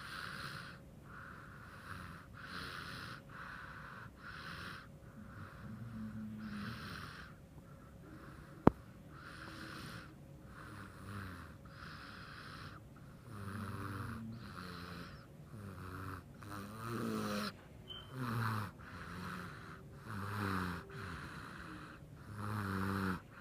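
Quick, regular snoring from someone asleep in a person's arms, about one breath a second, with a buzzing pitched snore in the second half. A single sharp click about nine seconds in.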